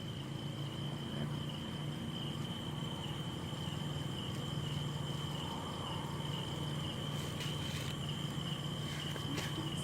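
Outdoor ambience: a steady, high-pitched insect drone over a low hum, with a few faint clicks in the second half.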